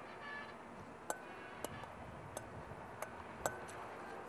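A utensil clicking against a bowl while a yogurt salad is mixed: about six sharp, irregular clicks, some leaving a brief ring.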